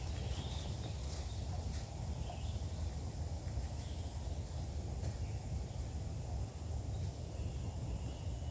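Pine-forest ambience: a steady high insect drone, scattered short bird chirps, and a steady low rumble underneath. A few faint footsteps on the path in the first couple of seconds.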